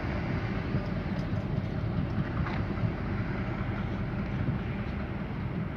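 Diesel-hauled train of hopper wagons moving away along the track: a steady low rumble of the locomotive and the wheels on the rails.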